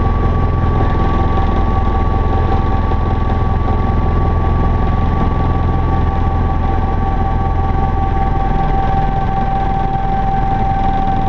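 Helicopter in flight, heard from inside the cockpit: a loud, steady rotor and engine drone with a low rumble, overlaid by two steady high-pitched whining tones.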